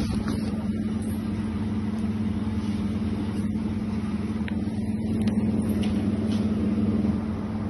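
Steady mechanical hum with a constant low drone, and a few faint clicks.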